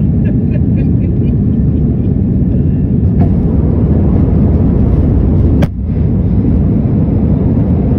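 Steady low roar inside a jet airliner's cabin, engine and airflow noise heard at a window seat. There is one sharp click a little over five seconds in.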